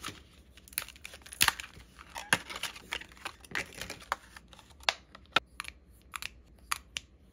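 A small product's packaging opened by hand: a thin cardboard box slid open, then a clear plastic sleeve crinkled and pulled off a pen, making irregular sharp crackles and clicks.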